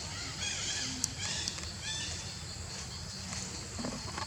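A string of short, high chirping animal calls, several a second, with a few sharp clicks over a steady low background hum.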